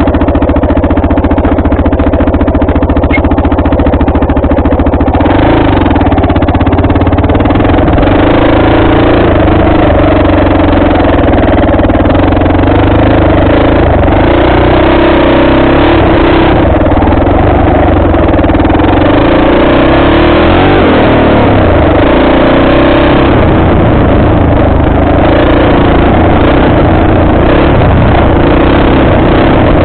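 Suzuki dirt bike engine running close to the microphone, steady at idle for the first few seconds, then rising and falling with the throttle as the bike rides off along the trail.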